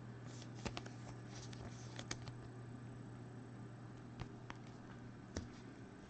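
Faint handling of trading cards: a few soft clicks and rustles as cards are slid through the hand, over a steady low hum.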